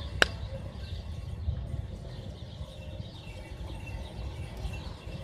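Outdoor ambience at the water's edge: a low, uneven rumble throughout, one sharp click about a quarter second in, and faint high bird chirps later on.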